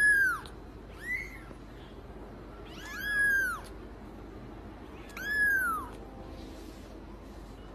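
A kitten meowing four times, high-pitched mews that rise and fall in pitch, the second one short.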